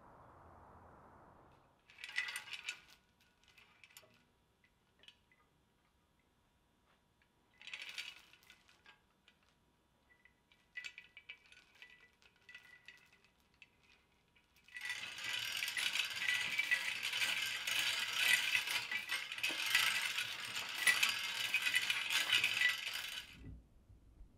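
Steel chains of a restored Wright Model 45 screw hoist clinking and rattling: a few short bursts of clinks, then from about midway a dense, continuous rattle lasting about eight seconds.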